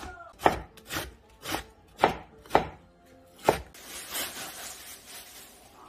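A wide-bladed knife chopping green onions on a wooden cutting board, in sharp strokes about two a second for the first three and a half seconds. Then a crinkly rustle of a plastic bag as bean sprouts are tipped into a frying pan.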